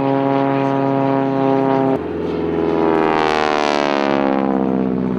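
Propeller aircraft engines droning steadily. About two seconds in, the sound cuts abruptly to a single propeller aerobatic plane flying past, its engine note sweeping down in pitch as it goes by.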